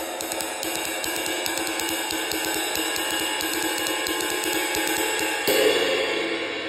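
A 20-inch Cymbal Craftsman crash ride (2238 g) played with a wooden stick in a quick, steady ride pattern: stick pings over a building bright wash. About five and a half seconds in, it is struck harder and the wash swells into a crash.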